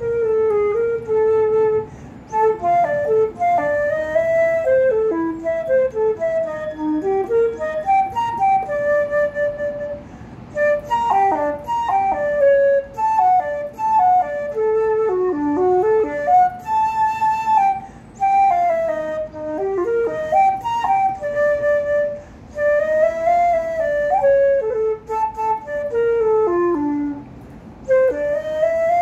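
Vintage Artley open-hole silver flute with a C foot, played solo: a quick, leaping choro melody in phrases broken by short breaths every few seconds.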